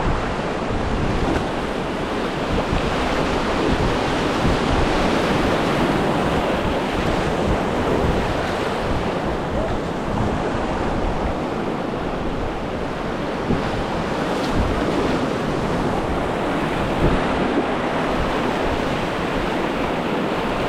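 Steady rush of ocean surf around a kayak, with wind buffeting the microphone.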